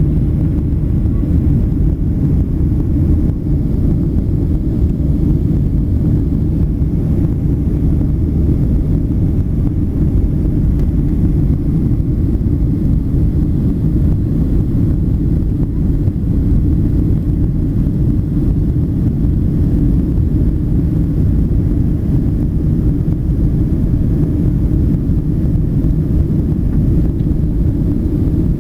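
Steady low rumble of an airplane's engines and rushing air, heard from inside the passenger cabin.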